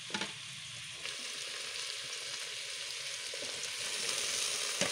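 Sliced onions sizzling in hot oil in a pot, a steady hiss that grows slightly louder toward the end. Short knocks just after the start and near the end come as chopped tomatoes and green chillies are tipped in from a plate.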